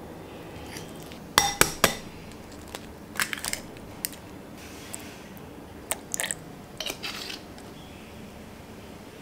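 A metal fork clinks and scrapes against a glass mixing bowl while mashing banana. The loudest clinks ring out about one and a half seconds in, and scattered lighter clinks and taps on the glass follow as egg, milk and spices go into the bowl.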